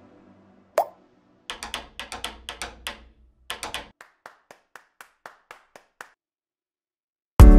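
Percussion samples auditioned one after another: a single sharp snap-like hit, then short loops of dry claps and stick clicks, the last a light even tick at about four a second. Near the end the full electronic track with its beat cuts in loudly.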